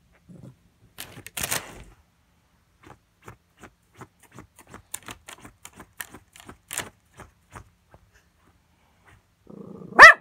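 Plastic liner of a cereal box rustling, then crackling in scattered sharp clicks as a small dog noses into the box. Near the end the dog gives one short, loud bark.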